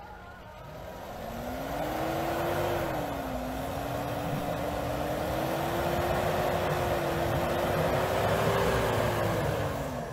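Toyota Hilux pickup's engine revving up about a second in and held high with small wavers, as the truck churns in deep snow, then dropping back near the end.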